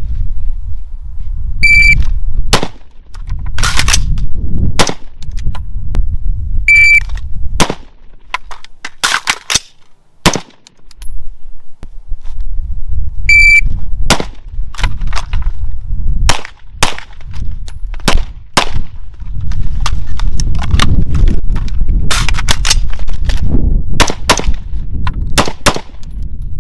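AR-15 rifle shots fired in quick strings of several rounds. Three short high electronic beeps, about 2, 7 and 13 seconds in, each start a string, as a shot timer does in a drill.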